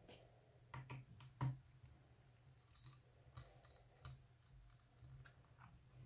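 Faint, irregular small clicks and ticks of a T5 Torx precision screwdriver working the bottom-panel screws of an aluminium laptop case, the sharpest about one and a half seconds in.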